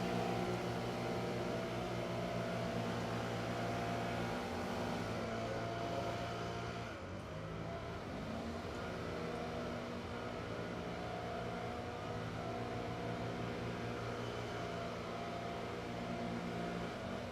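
Leaf blowers running steadily, engine drone with a rushing hiss of air. One eases off about seven seconds in, then comes back up to speed a second or two later.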